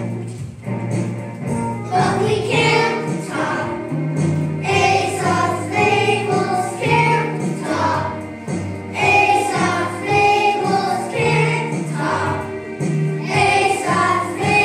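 A group of children singing a song together in chorus, with instrumental backing.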